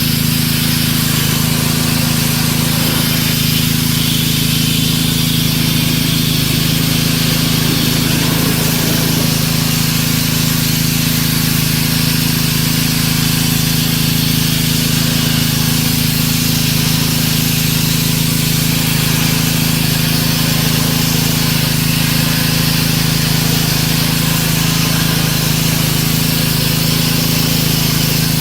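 Pressure washer running steadily: a constant motor hum under the hiss of the water spray.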